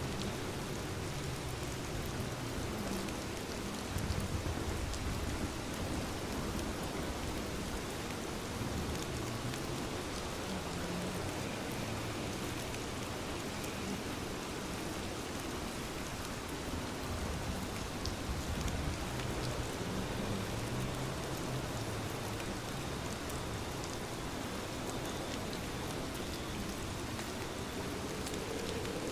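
Steady rain falling, a dense, even hiss of drops on surfaces, with a low rumble underneath. A faint rising hum begins near the end.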